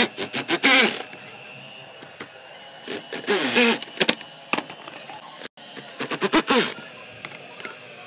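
Cordless drill-driver driving screws into wooden rails in three short bursts, its motor pitch rising and falling with each run, with sharp clicks in between.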